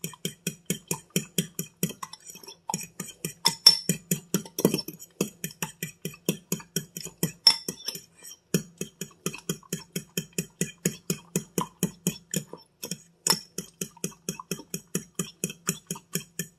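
Fork whisking raw eggs in a glass mixing bowl, its tines clicking against the glass in a quick, even rhythm of about five strokes a second.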